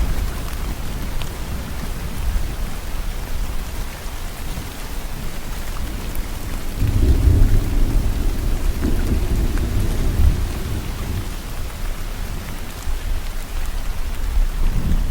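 Steady heavy rain with thunder: a low rolling rumble swells about seven seconds in, lasts a few seconds, and starts again near the end.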